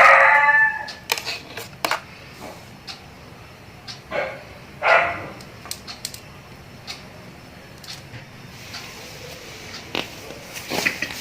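A dog barks sharply a few times: one loud bark at the start and two weaker ones about four and five seconds in. Light clicks and knocks come between the barks.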